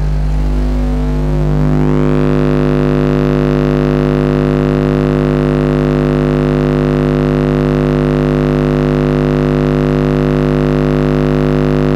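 Skar ZVX 15-inch subwoofer playing a 50 Hz test tone, driven at about 550 to 600 watts by a Skar SK-1200.1D amplifier at a 2-ohm load during a clamp power test. A loud, steady low drone with a buzzy edge of overtones.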